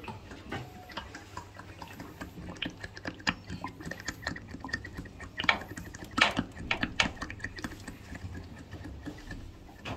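Irregular light metallic clicks and taps of hand work on a diesel engine, a few sharper knocks about halfway through, over a faint low steady hum.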